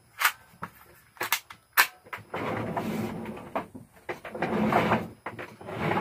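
A few sharp clicks from a small pistol being handled, four in the first two seconds, then stretches of rustling and shuffling movement.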